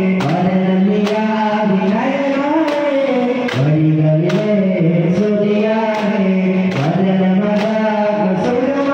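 Daff muttu: a group of voices singing a chant-like song in unison, with frame drums (daff) struck on a steady beat, a little faster than once a second.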